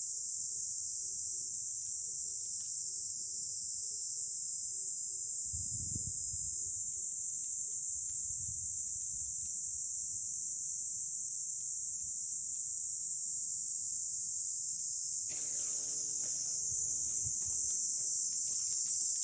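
Steady, high-pitched buzzing chorus of summer insects. A low rumble and rustling join in the last few seconds.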